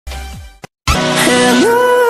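Electronic background music at a transition. A short sound falls in pitch and fades, there is a brief dropout, and then the track comes back in about a second in with a held melody that slides up in pitch.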